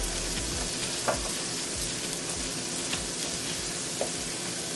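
Steady sizzle of food frying in a pan on the stove, with a couple of faint clicks about a second in and near the end.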